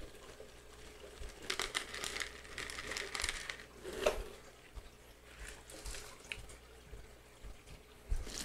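Clear plastic bag crinkling and rustling as it is handled, most busily from about a second and a half to three and a half seconds in, followed by a few light clicks and knocks.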